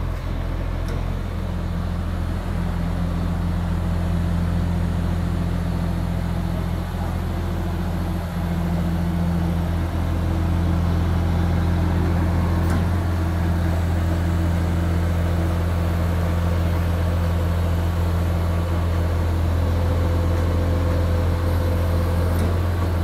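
Beiben 8x8 crane truck's diesel engine running steadily under power-take-off load, driving the knuckle-boom crane's hydraulics as it lifts a heavy gate panel. The engine note gets slightly louder about ten seconds in.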